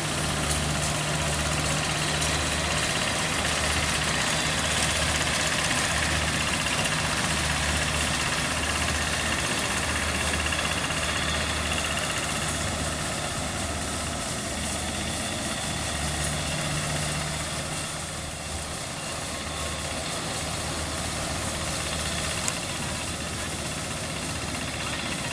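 Two-wheel hand tractor's single-cylinder diesel engine running steadily while it pulls a plough through the soil, a continuous low hum with an even pulsing beat.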